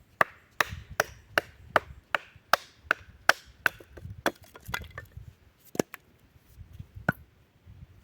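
A knife being batoned through wood: a wooden baton knocks on the blade's spine about three times a second, then a few slower, separate strikes near the end.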